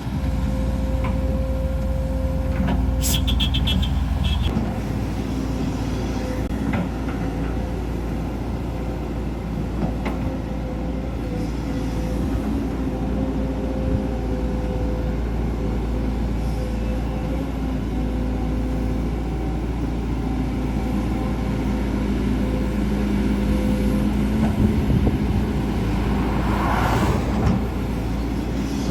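Heavy diesel construction machinery, an excavator working beside a dump truck, running steadily with a constant engine drone. There is a short burst of metallic clanking about three seconds in and a brief rushing noise near the end.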